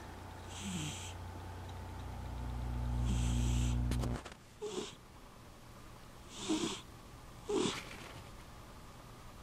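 Manx cat purring steadily, the purr swelling and then stopping abruptly about four seconds in. Short snoring breaths follow, three louder ones in the second half.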